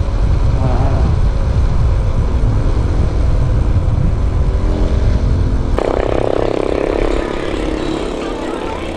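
Road noise during a bicycle ride: a heavy low rumble of wind on the microphone with motor-vehicle engine sound. About six seconds in, the sound changes abruptly to a steadier engine hum.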